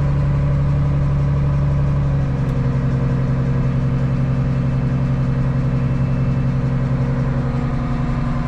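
Large farm machine's engine running steadily under a constant hum, its pitch dropping slightly about two seconds in.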